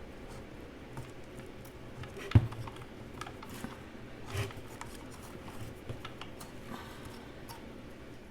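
Hand tools and small parts being handled on a portable bandsaw during disassembly: scattered light clicks and scrapes, with one sharp knock about two and a half seconds in.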